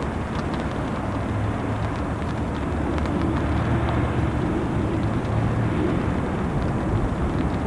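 Heavy rain falling with scattered sharp drip ticks, over a steady low drone of a ship's engines that swells slightly about three seconds in.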